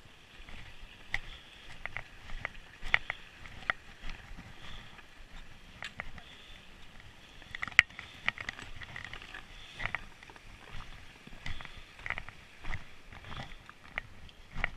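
Hikers' boots crunching on packed snow and trekking pole tips tapping, an irregular run of clicks and scuffs.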